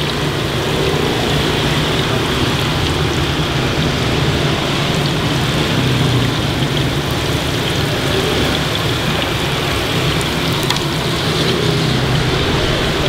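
Battered banana pieces deep-frying in a large pot of hot oil: a steady, even sizzle, with a low steady rumble underneath.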